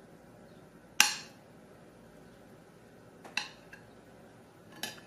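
A metal spoon clinking against a plate as it cuts into a poached egg: one sharp clink about a second in, then softer taps a little past three seconds and near the end.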